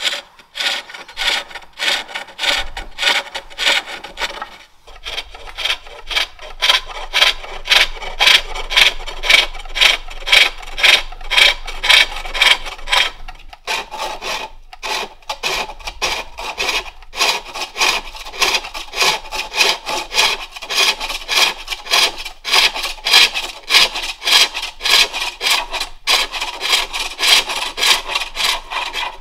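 Wooden bowl being turned on a foot-powered pole lathe: a turning tool cutting the spinning wood with a rasping sound in a quick, even rhythm, stroke after stroke as the treadle drives the work back and forth. The cutting stops briefly about five and fourteen seconds in.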